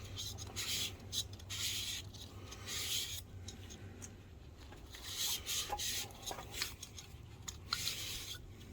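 A rag dampened with rubbing alcohol scrubbing sticky, tar-like residue off a projector's internal parts: a run of short, irregular wiping strokes.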